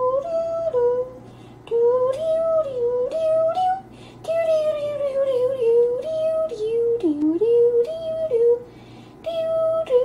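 A woman humming a wordless tune in phrases of stepping, sliding notes, broken by short pauses about a second and a half, four seconds and nine seconds in.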